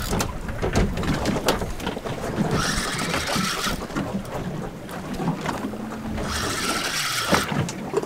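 Wind buffeting the microphone over a low rumble, with water washing against the boat's hull in two rushing surges a few seconds apart.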